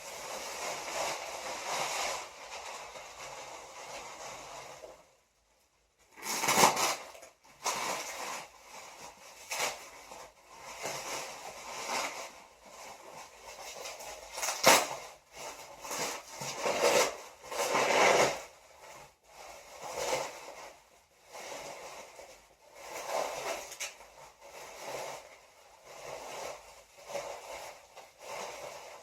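Packing material being handled and pulled apart in an unboxing, a rustling, crinkling noise that comes and goes in irregular bursts. A few sharp knocks stand out, the loudest about six and a half and fifteen seconds in, with a short break in the sound about five seconds in.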